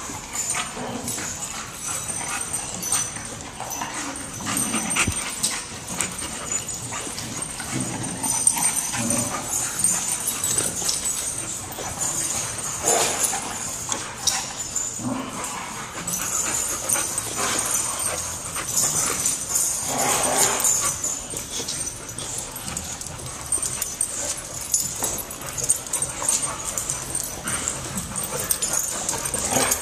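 Two English bulldogs play-fighting face to face, making short, irregular dog noises throughout, with a few louder ones around the middle.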